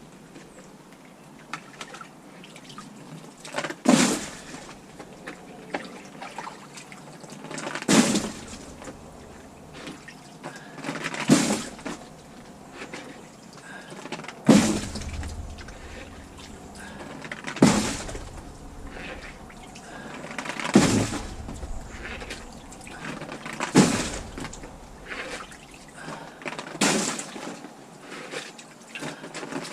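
Water being bailed by hand with a bucket: a splash of dumped water roughly every three seconds, about nine times, with dribbling water between the splashes.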